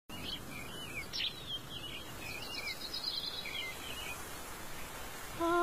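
Outdoor ambience: a steady hiss with a run of short, high bird chirps and calls over the first three and a half seconds. Near the end a held, sung or hummed musical note comes in.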